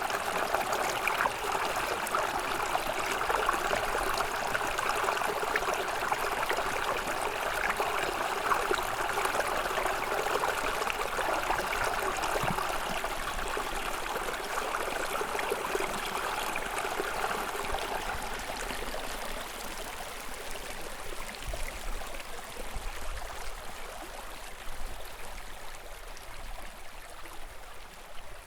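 Small snowmelt stream running in a steady babble of water, growing fainter in the last third.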